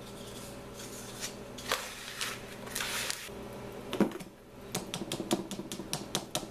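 Hands scraping and rustling through a moist granulated sugar and egg-white mix, then a single knock, then a quick run of light clicking taps at about five a second.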